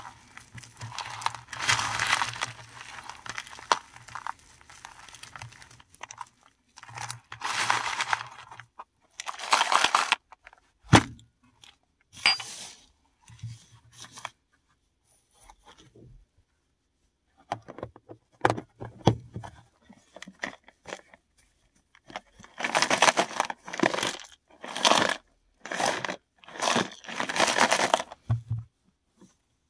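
Paradichlorobenzene mothballs crushed by hand: repeated crunching and grinding squeezes. There is a short pause about halfway through, then a quick run of about six squeezes near the end.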